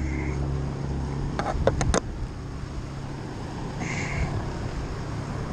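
Road traffic on the bridge: a steady low hum of engine and tyres from passing vehicles. A few sharp clicks come about one and a half to two seconds in.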